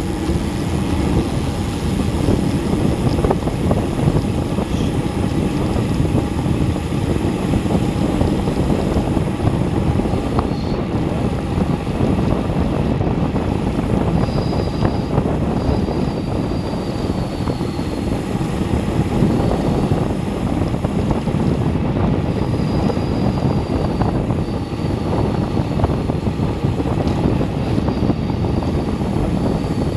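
Wind buffeting the microphone of an action camera on a road bike coasting downhill at close to 30 mph: a loud, steady low rush. A faint high whine comes and goes a few times in the second half.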